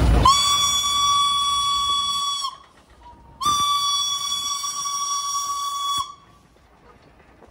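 Steam whistle of locomotive B 5112 blown in two long blasts of about two and a half seconds each, a steady high tone; the first opens with a rush of steam.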